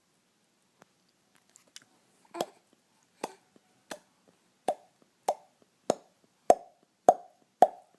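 A series of hollow pops, one about every 0.6 seconds, starting faint and growing louder from about two seconds in.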